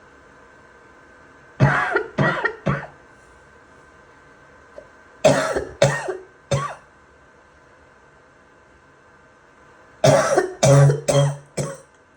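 A person's barking, wet cough in three fits: three coughs, then three more, then a longer run of about five coughs near the end.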